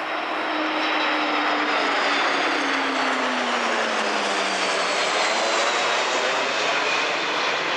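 Jet engines of a Boeing E-3D Sentry, with its four CFM56 turbofans, and two HS-125 jets flying over in formation: a loud, steady jet rumble and whine. It swells in the first second, and its tones fall in pitch from about three to five seconds in as the aircraft pass overhead.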